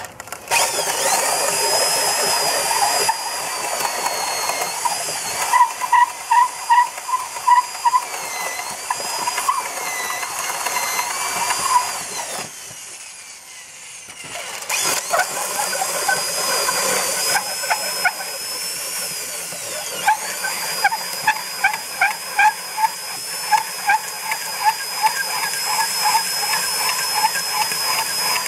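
Electric drill spinning a conical pole-pointing cutter head that shaves the end of a round timber post to a point: a steady motor whine with rhythmic cutting pulses, two to three a second. Near the middle it falls away for about two seconds, then starts cutting again.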